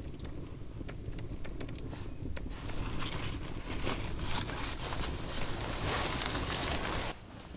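Wood campfire crackling with scattered small pops over a low wind rumble. From about three seconds in, a louder rustling of a sleeping bag as the sleeper shifts and sits up in it. The rustling cuts off suddenly near the end.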